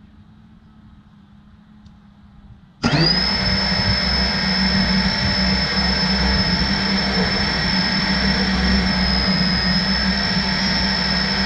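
An FPV quadcopter's Brotherhobby 2306 1800kv brushless motors start up suddenly about three seconds in and then spin at a steady idle, a high, even whine over a low hum, while the armed drone sits still on the ground.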